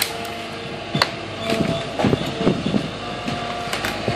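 Hydraulic excavator running with a steady engine hum and a faint whine from its hydraulics. Over it come sharp clacks and crunching of broken wood and demolition debris as the loaded bucket dumps into a steel dumpster: single knocks near the start and about a second in, a rougher crunching stretch around two seconds in, and another clack near the end.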